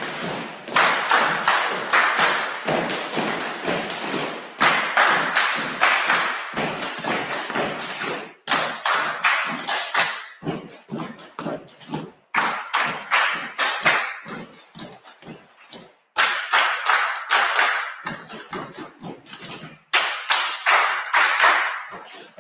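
A group doing body percussion together: rhythmic stomps on a wooden floor with hand claps and slaps, in fast phrases broken by short pauses.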